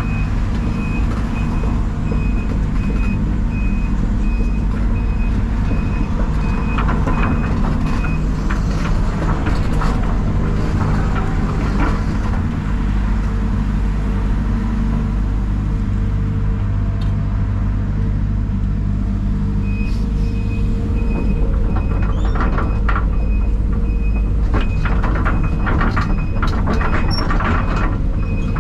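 Heavy diesel equipment running steadily. A backup alarm beeps for the first several seconds and again from about two-thirds of the way through. Metal clanks and rattles come in two spells.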